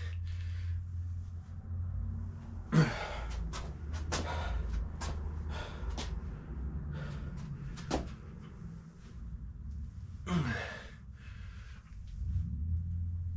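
Scattered knocks and clunks of gym equipment being handled, the loudest a sharp bang about three seconds in, over a steady low hum.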